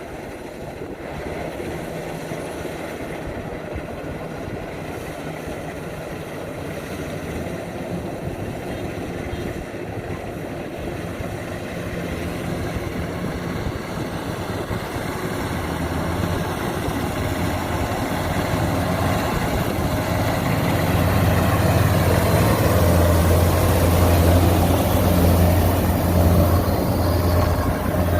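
Kubota combine harvester running while it cuts rice, its engine hum growing steadily louder through the clip, with a strong low drone from about halfway on.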